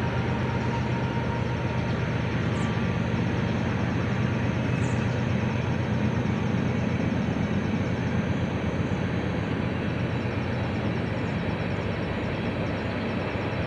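Steady low rumble of a large engine or vehicle with a droning hum, unbroken throughout.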